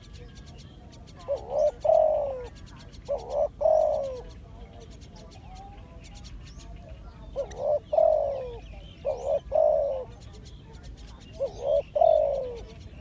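Spotted dove cooing. Short phrases of low, throaty coos, each note falling at its end, come about three times a few seconds apart. Faint chirps of other birds sound in the background.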